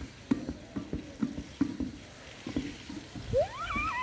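Short soft knocks and thuds, several a second, from a plastic ball being kicked about and from feet on grass. Near the end, a child's high cry rises and falls in pitch.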